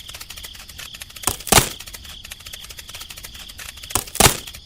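Two pairs of sharp knocks, each pair a quarter second apart, about a second and a half in and again about four seconds in. Behind them runs a steady, high chirring like crickets.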